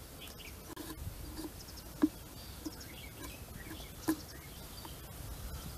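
Thin bamboo sticks being pushed through the rind of a hollowed bottle gourd, giving sharp clicks, two loud ones about two and four seconds in. Birds chirp faintly in the background.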